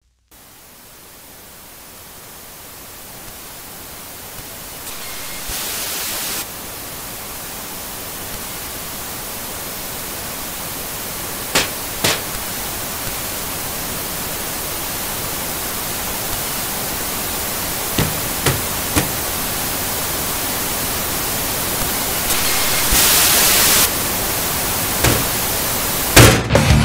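Hiss of analogue television static, growing slowly louder, with two short louder rushes of hiss and a handful of sharp clicks between them.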